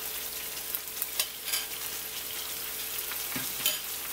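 Salmon fillets frying in a hot skillet, a steady sizzling hiss as a red wine, Worcestershire and garlic mixture is spooned over them, with about four short sharp clicks of a metal spoon.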